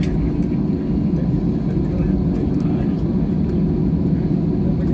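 Steady low rumble of an Airbus A320-family jet's engines and wheels, heard inside the passenger cabin as the airliner rolls down the runway after landing.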